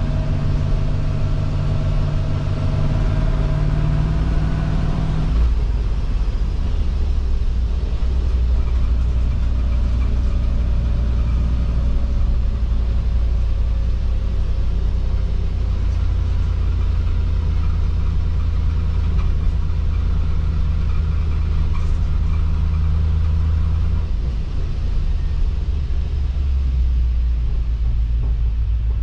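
Land Rover Defender 110's V8 engine heard from inside the cab while driving, a loud, steady drone. About five seconds in its note drops to a lower pitch, and it holds that lower drone, changing again briefly near the end.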